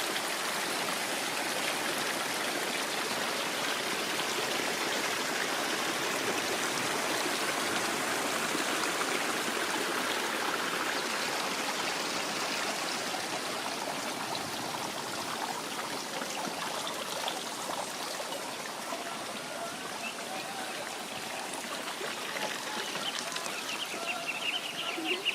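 Water of a stream running steadily, easing a little in the second half.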